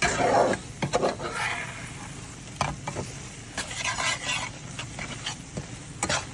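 A spoon stirring and scraping in a hot pan where flour has just gone into sizzling fat, with irregular scrapes over a steady sizzle.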